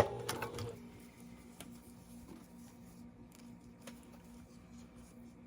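Sewing machine stitching rapidly through thick hoodie fabric and zipper, stopping under a second in. Then faint clicks and rustles of handling, over a faint steady low hum.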